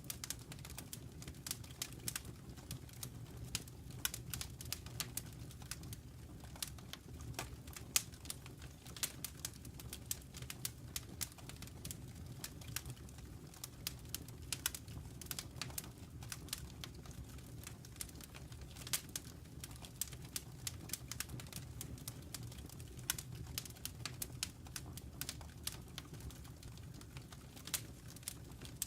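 Wood fire crackling in a fireplace: dense, irregular pops and snaps over a low, steady rumble.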